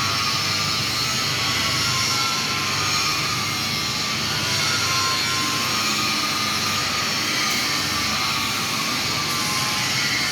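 TIG welding arc burning steadily, an even hiss and buzz with no breaks.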